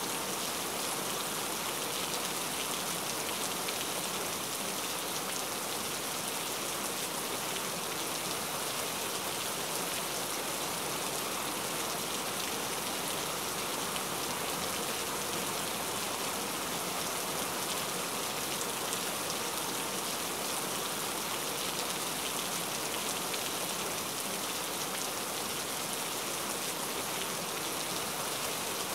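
Steady rain: an even, unbroken hiss of falling rain that holds the same level throughout.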